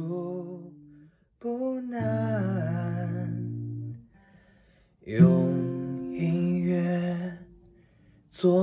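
Acoustic guitar chords in three separate phrases, each ringing out and fading before the next, with a wordless voice bending in pitch over them.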